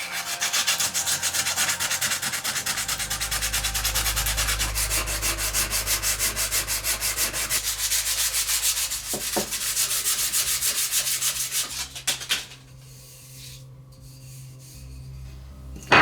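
Sandpaper rubbed back and forth by hand in quick, even strokes, about four a second. It stops about three-quarters of the way through, and a single sharp knock follows at the very end.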